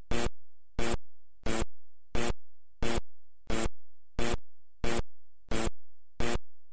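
A sharp clicking sound effect repeating at an even pace, about three clicks every two seconds.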